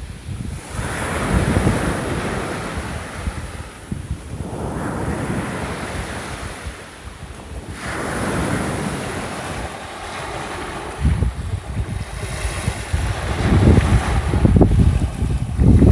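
Small waves breaking and washing up a beach, two surges that swell and fade about seven seconds apart. From about eleven seconds in, wind gusts buffet the microphone with an irregular low rumble that grows louder near the end.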